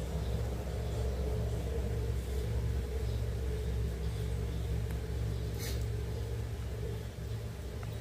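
A motor or engine running steadily with a low, even hum. A brief sharp click comes a little more than halfway through.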